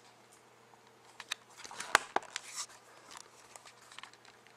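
A few scattered clicks of a computer keyboard and mouse during copy-and-paste, the loudest about two seconds in, over a faint steady hum.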